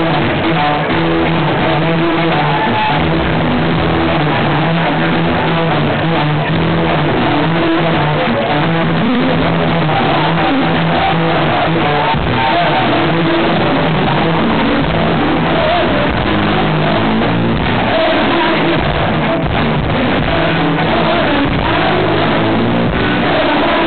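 Live funk band playing: electric guitar and bass guitar over a drum kit, with a steady, repeating bass line. The recording is loud and muffled, of poor quality.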